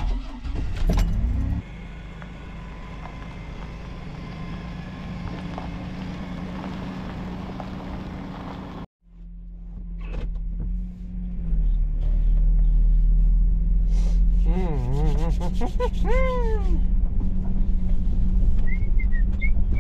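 Chevrolet Astro van engine starting on the key: it catches with a loud burst, runs fast for about a second and a half, then settles to a steady idle. After a short break the engine is running again as the van drives, heard from inside the cab. Near the end comes a run of squeaky chirps that fall in pitch.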